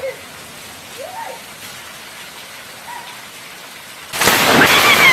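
Heavy rain falling steadily, then about four seconds in the sudden, very loud crack of a lightning strike close by, lasting about a second and cutting off abruptly.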